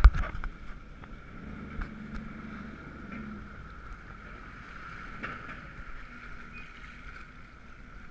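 Jet skis running at idle on choppy sea water, a steady drone with water sloshing against the hulls; a sharp knock right at the start.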